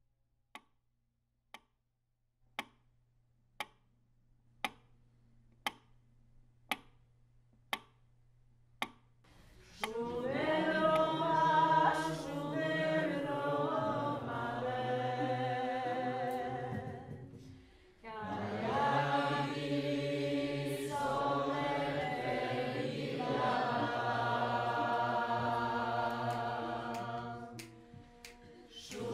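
A clock ticking about once a second, joined by a low steady hum. About ten seconds in a group of voices starts singing in harmony, stops for a moment, then sings on and fades near the end.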